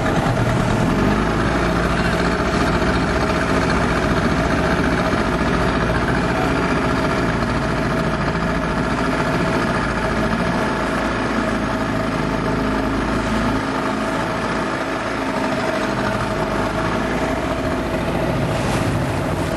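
Boat engine running steadily at an even pitch.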